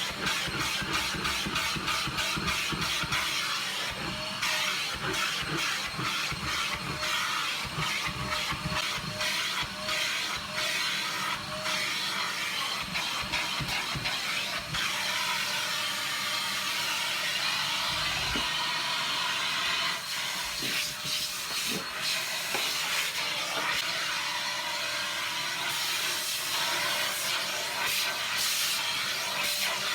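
Vacuum cleaner running with a steady airy hiss, its head worked over the floor, with many short strokes through the first half.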